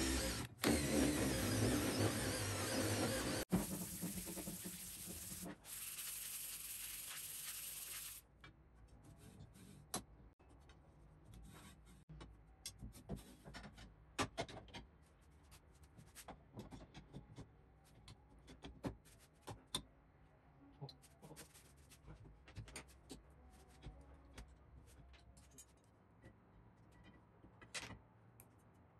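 Cordless drill driving screws into a steel plate, running with a few brief pauses and stopping about eight seconds in. After that, scattered light clicks and knocks of metal parts being handled, as a carriage is slid along steel rods and a ball screw.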